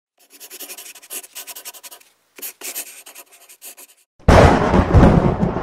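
Pencil-sketching sound effect of quick scratchy strokes on paper in two runs, then a sudden deep boom a little over four seconds in that rumbles on.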